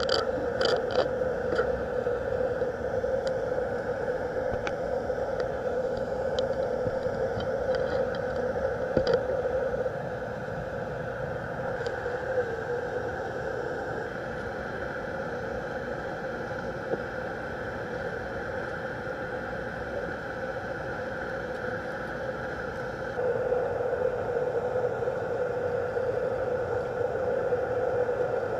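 Steady droning hum of underwater ambience picked up by a submerged camera, with scattered faint clicks in the first several seconds. It drops slightly about ten seconds in and comes back up a few seconds before the end.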